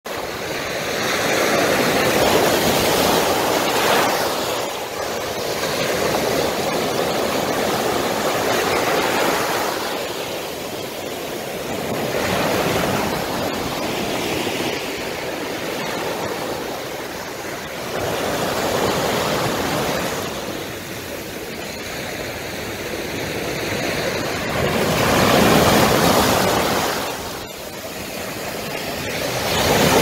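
Sea surf breaking and washing up the shore, the rush of water swelling and easing every few seconds as each wave comes in.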